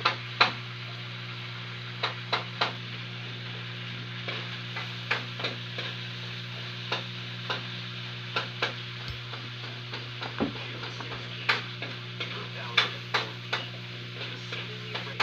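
Stainless steel dental tools (scalers, mouth mirror, tweezers) clicking and clinking against each other and a plastic case as they are handled, in short sharp clicks at irregular intervals. A steady low hum runs underneath.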